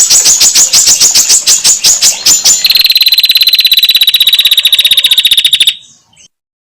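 Recorded calls of female prinias: a rapid, sharp ticking chatter of about eight ticks a second, then a faster, higher trilling rattle of about twenty notes a second that cuts off suddenly.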